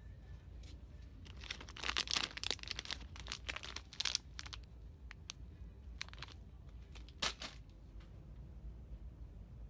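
Crinkling and rustling of plastic packaging being handled, in a dense run of crackles for a few seconds and a couple of short ones later, over a steady low hum.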